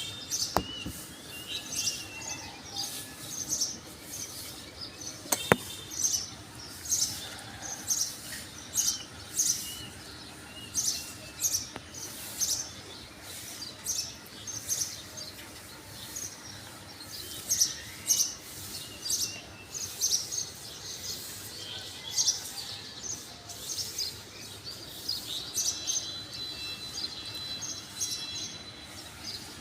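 Small birds chirping repeatedly, many short high chirps, one every half second to a second. A single sharp click about five seconds in, and a thin, steady, high trill near the end.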